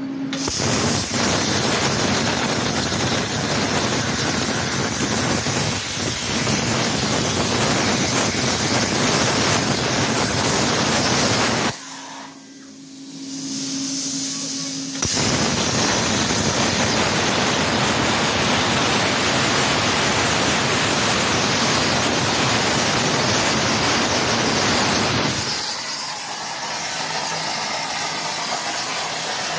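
Everlast Power Plasma 82i plasma torch cutting half-inch steel plate: a loud, steady hiss. It stops about twelve seconds in, leaving a faint hum, returns about three seconds later, and turns softer near the end.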